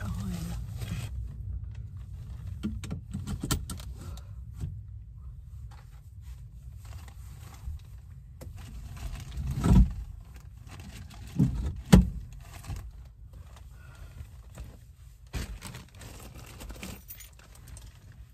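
Handling noises inside a car cabin: rustling of plastic seat covers, small clinks and clicks, and three dull thumps close together about halfway through as a bag and belongings are moved about.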